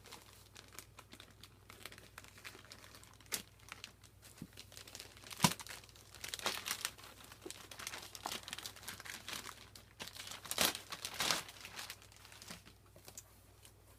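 Sealed plastic packaging crinkling and tearing as it is cut open with scissors, with scattered sharp clicks and snaps. The loudest snap comes about five and a half seconds in, and a louder run of crinkling comes around ten to eleven seconds.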